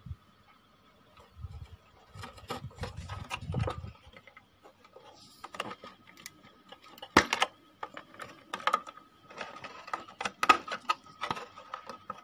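Handling noise from working wiring-harness connectors and a circuit board inside an amplifier cabinet: irregular clicks, knocks and rustles, the sharpest knocks about seven and ten seconds in. A faint steady high tone lies underneath.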